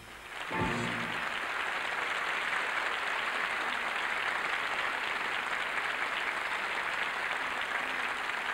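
Large studio audience applauding, a dense, even clapping that starts about half a second in, right after the music's short final note, and holds steady.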